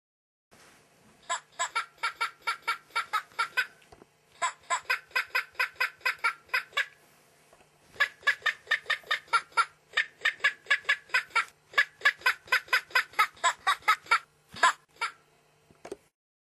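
Plush toy chicken's electronic cackle: rapid, evenly spaced clucks, about five a second, in three runs, the last and longest starting about eight seconds in, over a faint steady hum.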